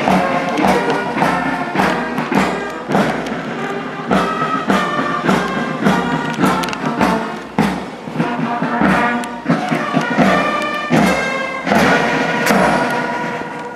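Brass music with a steady beat, about two beats a second.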